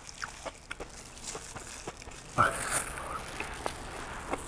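Quiet eating sounds: small clicks and rustles as a plastic-gloved hand picks a rice roll out of a paper takeaway box, then chewing, with one brief louder sound about two and a half seconds in.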